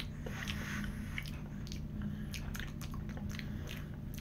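Wet lip smacks and tongue clicks from a person tasting a mouthful of oil-based edible lubricant, a scatter of small clicks, over a faint steady hum.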